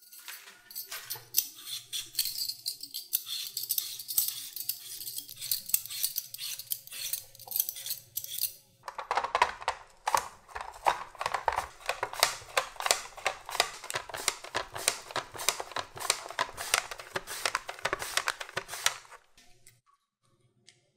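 A raw potato being peeled with quick, fine scraping strokes, then, from about nine seconds in, slid back and forth over a mandoline slicer's blade in rapid, even rasping strokes that cut it into thin slices. The slicing stops sharply shortly before the end.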